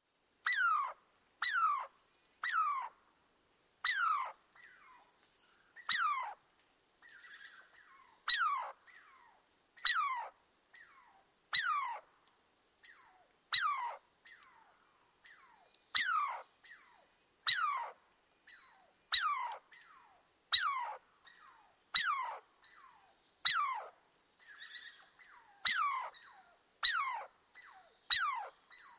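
Squirrel calling over and over: short, sharp barks that each slide steeply down in pitch, about one every second to second and a half, with fainter calls in between.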